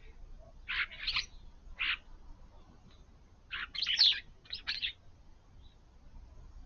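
Garden birds giving short calls: three in the first two seconds, then a louder run of several close together around the middle.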